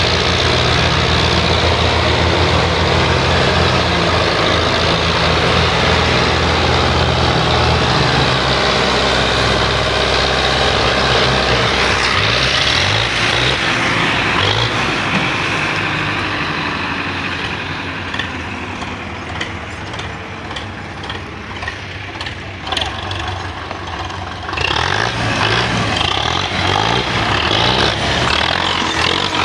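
Belarus tractors' diesel engines running hard, pulling a heavily loaded sugarcane trolley and blowing black smoke, with a fast, pulsing exhaust beat. The sound drops off for a few seconds in the middle and then comes back loud about 24 seconds in.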